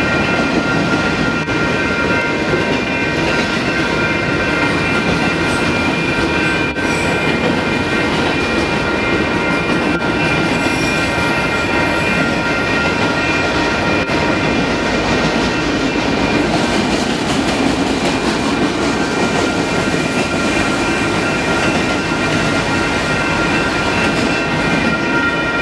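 Union Pacific freight train of autorack cars rolling past, a steady rumble of wheels on rail with several sustained high-pitched squealing tones from the wheels.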